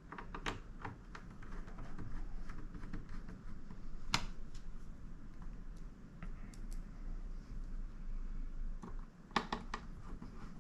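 Small metal clicks and taps from a screwdriver and screws being worked into the Flex IO panel of an HP Elite Mini 800 G9 mini PC, with one sharp click about four seconds in and a quick cluster of clicks near the end.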